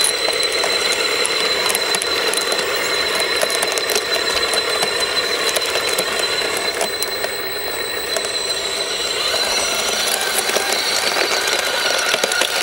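Small electric motors and gearboxes of a 1/14-scale RC construction machine running: a steady high whine over a dense, rattling clicking of gears and mechanism.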